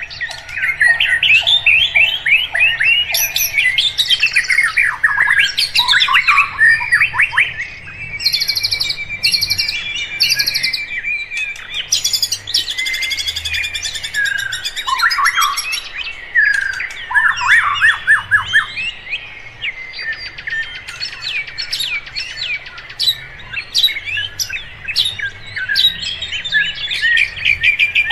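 Several birds singing and chirping at once: a dense chorus of overlapping whistles, trills and rapid chirps.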